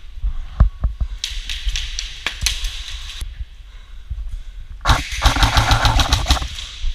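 Airsoft electric guns firing: scattered shots for a couple of seconds, then a long full-auto burst of about a dozen shots a second, with the gearbox whirring, starting about five seconds in. A few dull thumps come in the first second.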